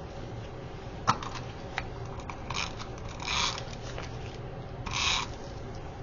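Paper being handled and scraped on a craft table: a sharp click about a second in, then three short scraping rustles of paper.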